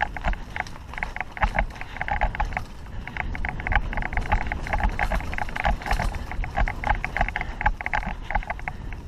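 Avalanche 3.0 mountain bike being ridden over a dirt trail: a dense, continuous clatter of rapid rattling clicks from the bike, with irregular low thuds as it hits bumps.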